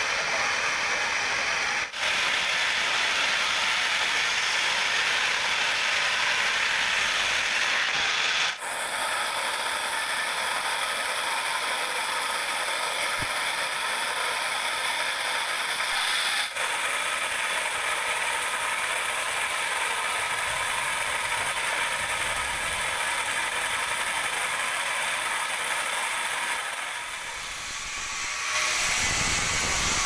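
Large band sawmill running and sawing a teak log: a steady high-pitched mechanical noise, broken off abruptly a few times.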